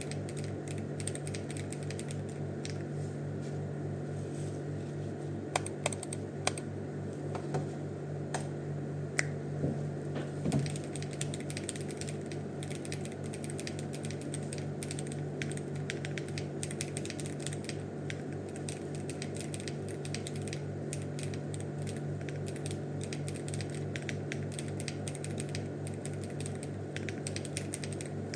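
Continuous fast typing on a foamless, gasket-mounted acrylic 60% mechanical keyboard with Owlab Ti magnetic hall-effect switches and ABS doubleshot Cherry-profile keycaps, a rapid run of key clacks. A few louder single clacks stand out between about six and eleven seconds in.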